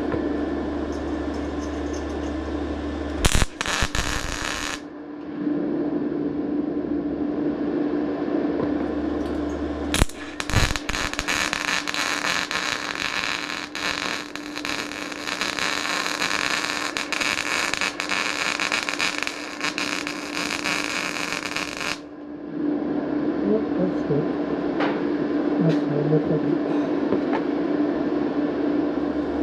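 Welding arc crackling as a patch is welded into a 1955 Fordson Major's sheet-steel nose cone: a short burst about three seconds in, then a long continuous weld of about twelve seconds.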